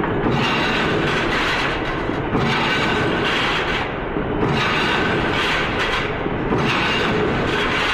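Industrial machinery running steadily, a dense mechanical noise whose high end dips briefly about every two seconds.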